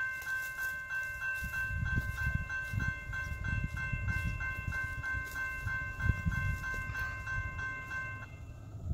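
Railroad crossing bell ringing in a steady pattern of about three strikes a second while the crossing gates lower. It stops about eight seconds in, once the gates are down. A low, uneven rumble runs underneath.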